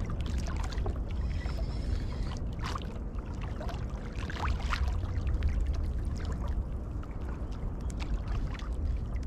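Sea water sloshing and lapping against a stand-up paddleboard, with a steady low rumble and scattered small clicks and splashes.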